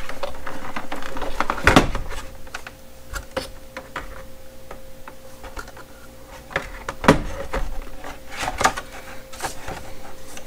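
Handling of a portable power bank in its retail packaging: scattered knocks and clicks with soft rustling as it is taken out and turned around, busiest in the first two seconds, with single sharper knocks about two and seven seconds in.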